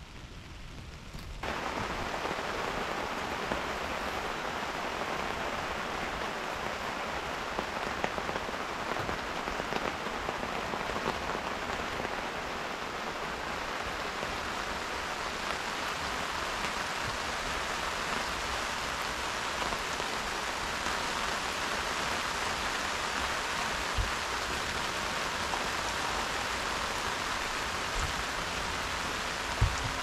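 Steady rain falling, an even hiss of drops that jumps up in loudness about a second and a half in. A few single louder drops knock through it, the sharpest near the end.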